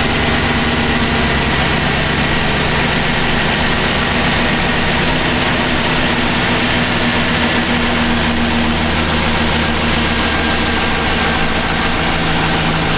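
A Chevrolet Silverado's 5.3-litre V8 idles steadily, just started after a radiator replacement so the refilled cooling system can circulate and warm up. The idle eases down slightly over the seconds.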